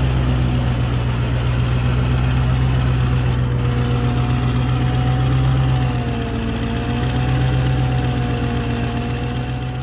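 The LMC 3700 snowcat's Detroit Diesel engine running steadily at idle. A faint, slightly wavering whine joins about four seconds in.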